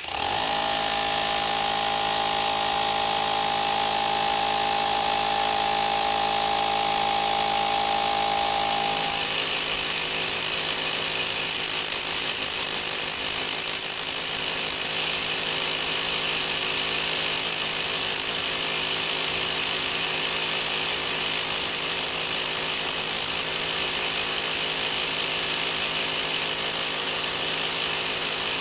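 SDS Max hammer drill running a large masonry core bit into brick. It starts abruptly with a steady whine. About nine seconds in the whine stops and the sound grows louder, holding steady as the bit cuts into the brick.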